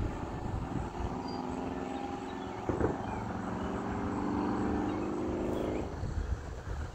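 Federal Signal 2001SRN outdoor warning siren sounding a steady tone from a distance for a severe thunderstorm warning. The tone comes in about a second in, swells and fades, and drops out near the end, over a low wind rumble on the microphone with a single thump about three seconds in.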